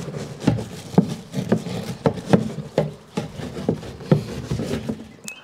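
A brush scrubbing the inside bottom of a plastic HMMWV fuel tank in a little gasoline, in quick strokes about twice a second, loosening the diesel-bug sludge stuck there.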